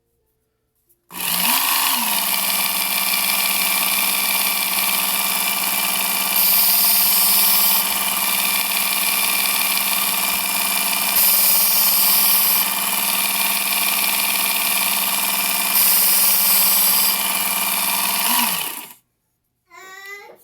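Work Sharp Ken Onion Edition belt sharpener, with the blade grinding attachment, spinning up about a second in and running steadily. Three louder hissing stretches are a knife blade being ground against the moving abrasive belt. The motor winds down near the end.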